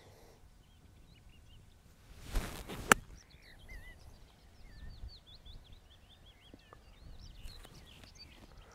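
Golf iron swung through the air with a short swish, ending in one sharp click as the clubface strikes the ball about three seconds in. Birds chirp afterward.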